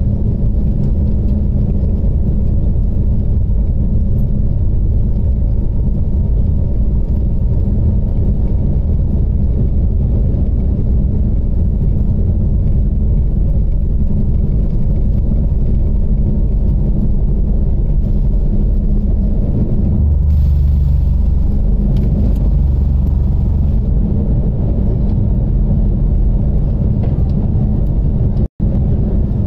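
Cabin noise of a jet airliner on its takeoff roll and climb-out: a loud, steady low rumble of the engines at takeoff power and the wheels on the runway. It shifts in tone about twenty seconds in as the plane leaves the ground, and cuts out for an instant near the end.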